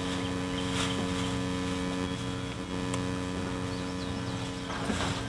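Steady, distant drone of a Dynam Beaver RC floatplane's electric motor and propeller at cruise, heard as a hum of several fixed tones.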